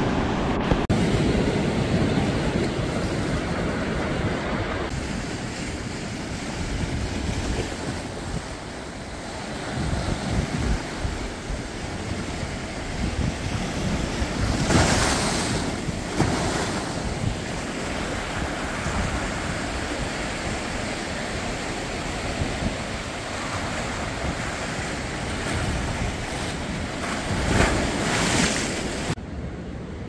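Ocean surf washing over shoreline rocks, mixed with wind on the microphone. It swells louder around the middle and again near the end.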